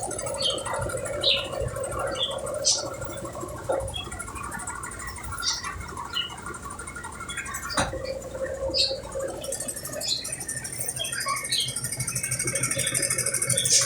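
Brastemp Ative 11 kg washing machine running, a steady hum and low rumble with short high squeaks and chirps scattered throughout.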